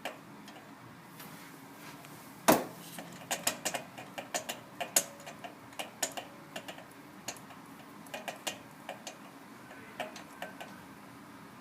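Ratchet wrench clicking in short irregular runs while a spark plug is turned in its hole, with one sharper knock about two and a half seconds in.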